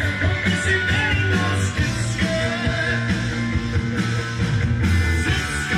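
Rock music playing from a vinyl record on a Pioneer PL-518 direct-drive turntable fitted with a Shure M44E cartridge.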